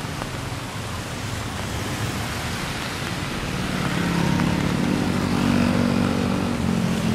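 Steady hiss of rain and road traffic, with a motor vehicle's engine growing louder about halfway through and easing off near the end.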